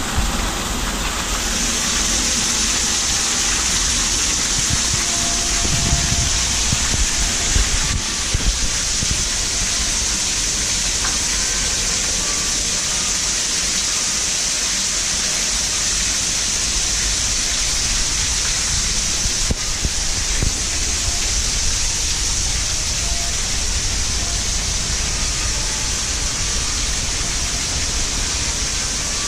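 Water falling in thin streams from the ledge of an artificial rock grotto into the pool below, a steady rushing hiss.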